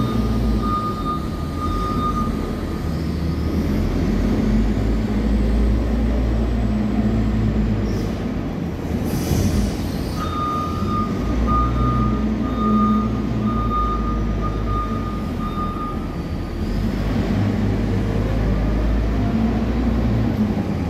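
Wheel loader's diesel engine running under load as the machine drives and pushes loose stone. Its reversing alarm beeps at the start and again through the middle for about six seconds.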